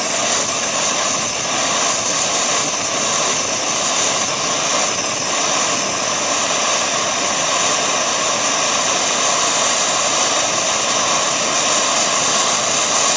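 Petrol-fuelled liquid-fuel camping stove burning with a steady, loud rushing hiss, turned down to its lowest petrol setting.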